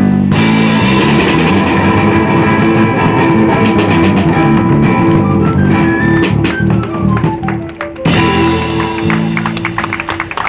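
Street band playing an instrumental passage on amplified acoustic guitars with a drum, including a descending run of notes about two-thirds of the way through. The tune winds down and ends just before the close.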